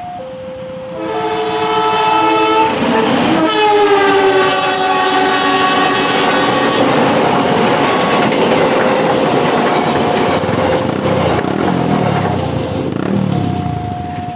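KA Mataram passenger train passing a level crossing. It sounds its multi-tone horn about a second in, and the pitch drops as it goes by; then the carriages roll past in a steady rush of wheel noise. Under it all, the crossing's electronic alarm keeps alternating between two tones.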